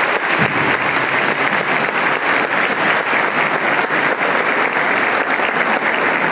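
An audience applauding steadily, with many hands clapping at once.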